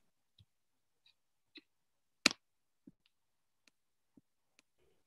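Faint scattered clicks, about ten of them, with one much louder, sharper click a little over two seconds in.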